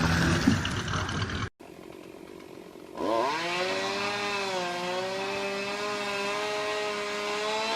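A loud noisy stretch cuts off suddenly, then about three seconds in a two-stroke chainsaw revs up and runs at high speed, its pitch dipping briefly before holding steady, and falls away at the end.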